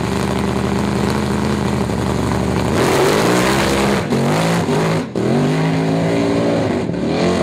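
Chevrolet El Camino drag car's engine held at steady high revs, then about three seconds in it launches and pulls hard through the gears, its pitch rising and dropping back at each shift. The rear wheels spin for lack of grip on the launch.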